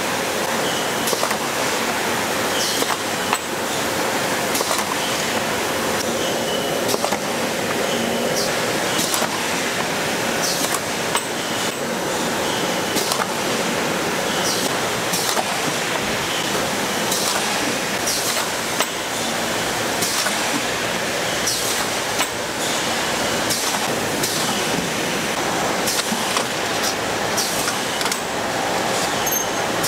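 Ice cream stick-bar production line running: a steady factory machine din with frequent, irregular sharp metallic clicks and clinks.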